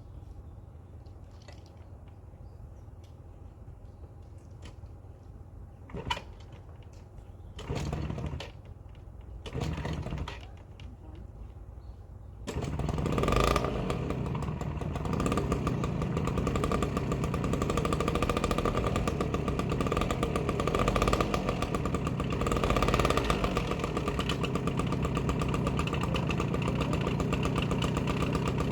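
Old scooter engine, after 16 years of storage and running on a fresh battery and fresh fuel, cranked in two short tries before catching about twelve seconds in and running steadily.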